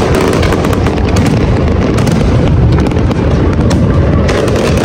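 Large aerial fireworks display going off: a continuous rumble of shell bursts with dense crackling throughout, the crackle thickest near the end.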